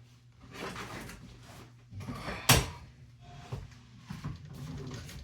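Handling noises: irregular rustling and clatter, with one sharp knock about two and a half seconds in, over a low steady hum.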